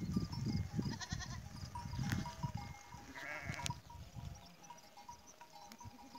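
A flock of sheep and goats bleating, with one clear bleat about three seconds in, over a low rumble that dies away about four seconds in.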